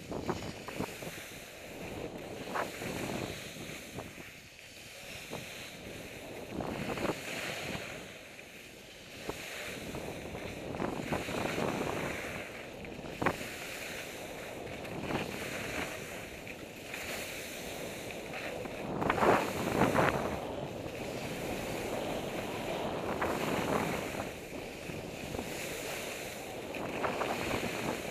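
Skis scraping and hissing over soft spring snow during a downhill run, mixed with wind rushing over a helmet camera's microphone. The sound swells and fades repeatedly, is loudest about two-thirds of the way through, and has a few sharp clicks.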